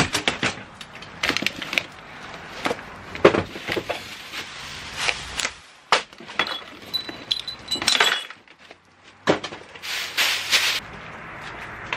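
Gloved hands rummaging in a cardboard box and unwrapping an item from plastic and paper wrapping: crinkling and rustling, with scattered sharp knocks and clinks. The longest, loudest crinkling comes a couple of seconds before the end.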